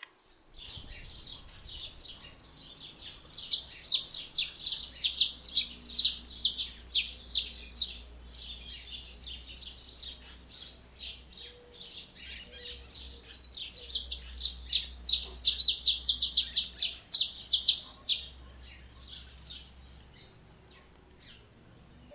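Male saffron finch singing: two long phrases of rapid, repeated high notes, about four a second, with softer chirping between them.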